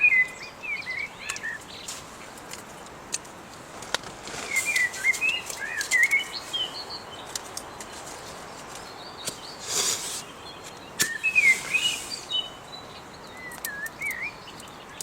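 A songbird singing short, quickly warbling phrases, four times with pauses between, over a steady background hiss. A few brief sudden noises come in between, the loudest about ten seconds in.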